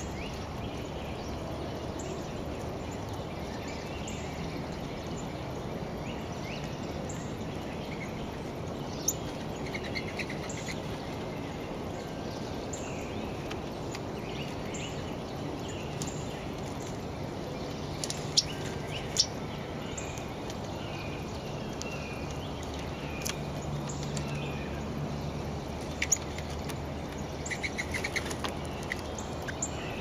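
A red-bellied woodpecker's bill knocking into a bowl of seed and suet, a few sharp, irregular clicks. Under them is a steady outdoor background hiss with faint, short bird chirps scattered throughout.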